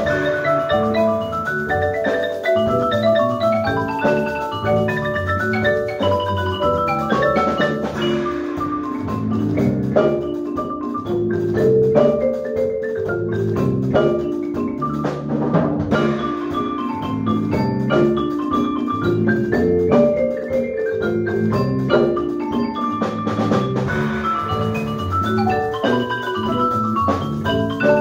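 Keyboard percussion ensemble of marimbas and a vibraphone playing together: fast running mallet notes over a low marimba bass line, with sharp accented strikes through the middle.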